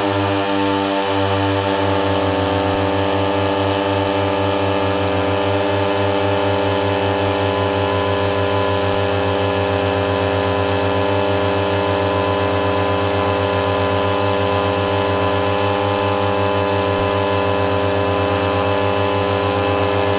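Two 30cc two-stroke brush-cutter engines, a Mitsubishi TU33 and a Stihl FR3001, coupled drive shaft to drive shaft and running together at high speed, each pushing against the other. The drone holds one steady pitch with no change in speed.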